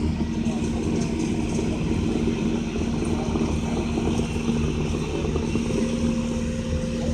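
Vehicle engine running steadily, a continuous low hum with a held tone and no change in speed.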